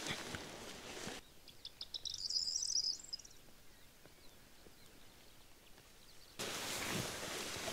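A small songbird sings one quick, high twittering phrase lasting about two seconds against a quiet rural background. Before it and again near the end, louder outdoor rustling with a few soft knocks.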